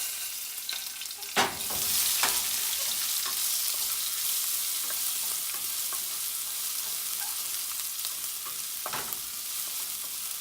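Ginger-garlic paste and green chillies sizzling in hot oil with fried fennel seeds, stirred in the pan. A sharp knock about a second and a half in is followed by the hiss swelling loud and holding steady, with a few light spoon clicks.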